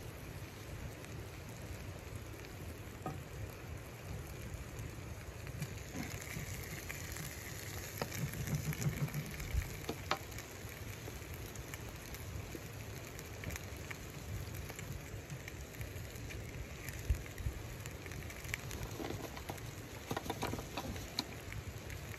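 Chicken pieces sizzling steadily as they fry in a skillet on a wood-burning camp stove, with scattered pops and crackles.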